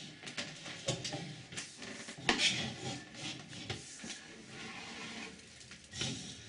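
SeeSnake sewer camera's push cable being fed by hand through a toilet bowl into the drain, rubbing and scraping in irregular strokes, with one sharper scrape about two seconds in.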